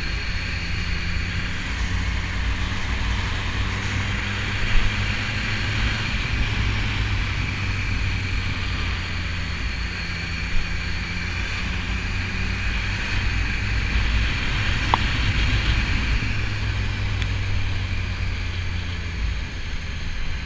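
BMW S1000RR inline-four engine running at a steady speed while riding, an even low drone with a steady hiss over it. A couple of brief knocks stand out about five and ten seconds in.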